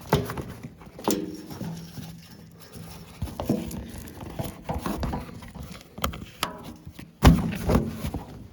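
Irregular metallic knocks and clunks from a mini excavator's metal cover being handled and fitted back in place. There is a brief ringing scrape about a second in and a heavy thud near the end.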